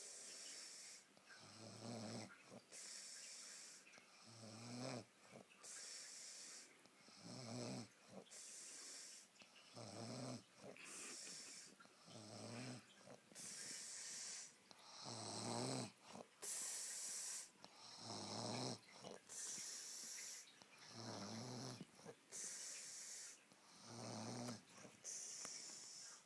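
A girl snoring in her sleep, fairly quiet: a low, pitched snore alternates with a hissing breath, one full breath about every three seconds.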